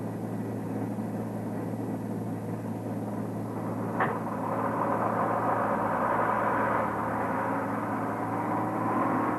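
Aircraft engines droning steadily, with a sharp click about four seconds in and whining tones that rise slowly near the end.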